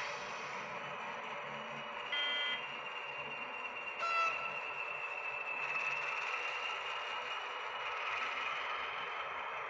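H0-scale model of a PKP SM42 diesel shunter running slowly on the layout track with its coaches: a steady motor and running noise with a high whine that strengthens about halfway through. Two short horn-like tones sound about two and four seconds in.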